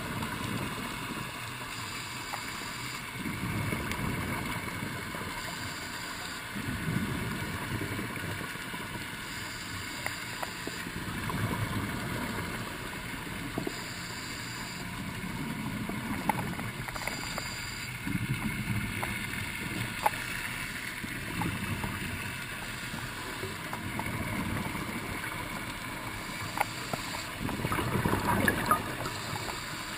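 A scuba diver breathing through a regulator, heard underwater: a bubbly rush of exhaled bubbles about every three to four seconds, with a fainter hiss of inhalation between them and a few sharp clicks.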